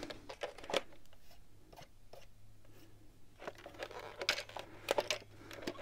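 Scattered handling noises from unpacking a large-scale model locomotive: short rustles and light knocks of plastic wrap and foam packing, bunched near the start and again in the second half with a quiet gap between, over a faint steady hum.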